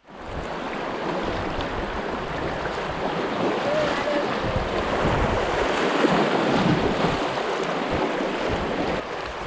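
Fast river current rushing and splashing around an inflatable kayak as it is paddled down a riffle, with wind buffeting the microphone.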